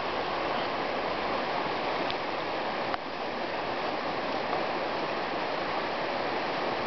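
Steady rush of flowing river water, with a brief click about three seconds in.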